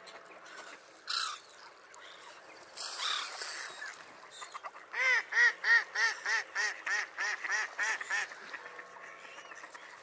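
Mallard hen quacking: a run of about ten quacks in roughly three seconds, loudest at first and then fading, the hen's descending call. Scattered shorter calls of other waterbirds come before it.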